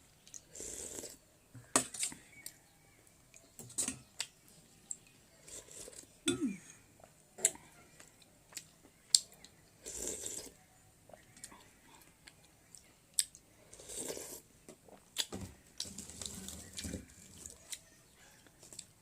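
Eating sounds: a utensil clinking against a bowl in scattered sharp taps, between about five short, noisy mouth sounds of eating lasting about a second each.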